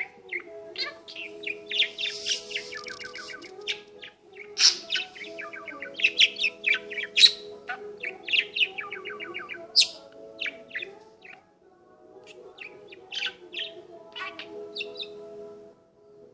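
Budgerigar warbling and chattering: a fast run of short chirps, squeaks and rapid clicking trains, broken by brief pauses.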